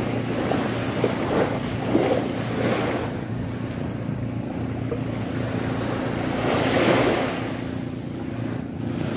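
Surf washing onto the beach, with one wave swelling up about seven seconds in, and wind buffeting the microphone. A faint steady low hum runs underneath.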